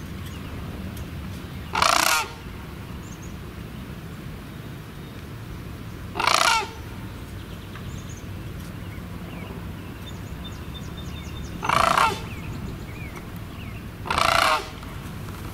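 A sandhill crane calling: four loud calls, each about half a second long, a few seconds apart.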